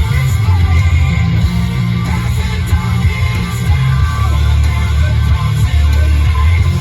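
Live hard rock from a concert PA: heavily distorted electric guitars and loud bass, with faint singing.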